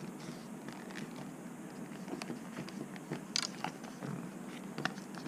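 Faint handling noise from a phone and its case being turned over in the hands: scattered light clicks and rustles, with a brief hiss about three and a half seconds in, over a steady low hum.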